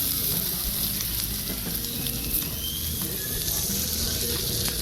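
Marinated pork sizzling on a grill over an oak-firewood fire: a steady high hiss with a few small crackles, the marinade starting to char.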